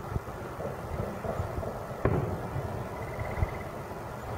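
A distant aerial firework shell bursting about two seconds in: one sharp boom that rolls on in a short rumble. A few fainter low thumps sound around it.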